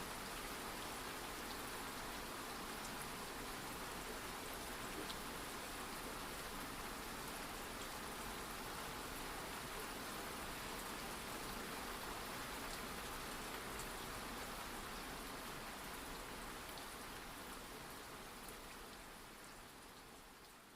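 Steady rain ambience: a constant hiss of rainfall with small scattered drop ticks, fading out gradually over the last few seconds.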